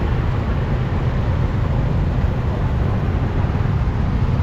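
Motorbike and scooter traffic heard from among the riders: a steady low rumble of small engines and road noise.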